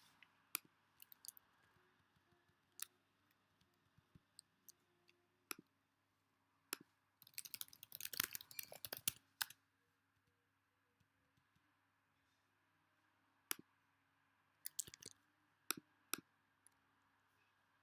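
Computer keyboard and mouse clicks: scattered single clicks, with a short burst of rapid typing about seven to nine and a half seconds in.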